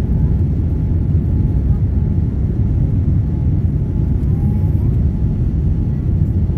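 Jet airliner's engines and airflow heard from inside the cabin during the climb after takeoff: a steady, loud low rumble.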